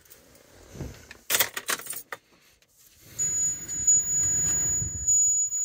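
Keys rattling and clicking as the key goes into a 2009 Chevrolet Suburban's ignition. About three seconds in the ignition is switched on, and a low hum and a steady high-pitched electronic tone start up.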